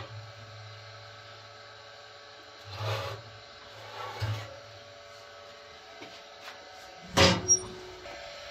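Metal baking tin knocking and scraping against the rack of a wood-fired oven as it is drawn out, then a loud double metallic clang near the end.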